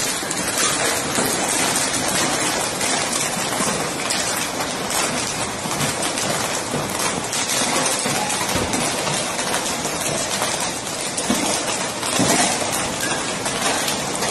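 Hailstones pelting down hard, a dense, steady clatter of countless small impacts.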